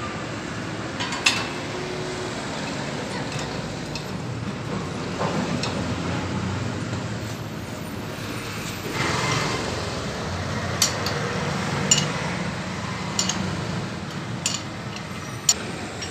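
Steady low background rumble, with a handful of sharp light metallic clicks as nuts, bolts and the bearing flange on a rotavator's gearbox side are handled by hand.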